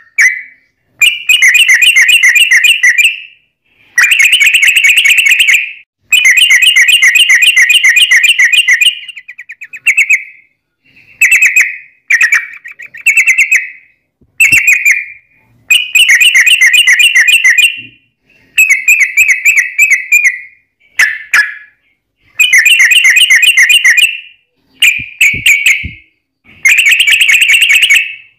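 Yellow-vented bulbul (trucuk) singing loudly in rapid chattering phrases, a fast run of repeated notes (the 'ropel'). The phrases come in bouts of about one to three seconds, broken by short pauses.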